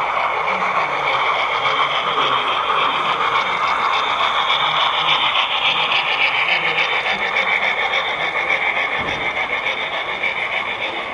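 HO scale model freight train rolling over a trestle bridge: a steady rolling clatter of the cars' metal wheels on the track, with fast even clicking.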